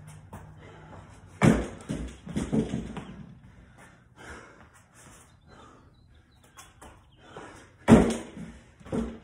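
Feet landing hard on a wooden plyo box and back down onto the floor during burpee box jump-overs. There are heavy thuds about a second and a half in, followed by a few smaller ones, then another loud landing near the end and a last one just after it.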